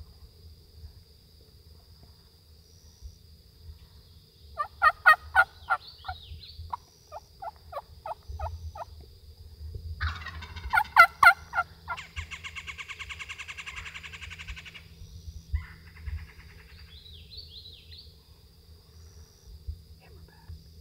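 Wild turkey calls, likely an Osceola turkey: a run of yelp-like notes about five seconds in, then a loud gobble with a long rapid rattle around ten to fifteen seconds in.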